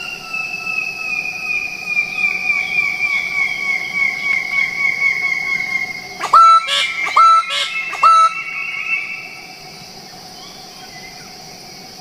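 Bird-of-paradise calling: a long series of rapid notes that slowly falls in pitch, then three loud, sharp calls about a second apart. A steady high drone of rainforest insects runs underneath.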